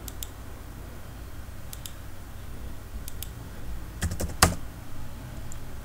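Computer keyboard and mouse: a few paired clicks, then a quick run of louder keystrokes about four seconds in as a circle's radius of 112 is typed into SolidWorks, over a steady low hum.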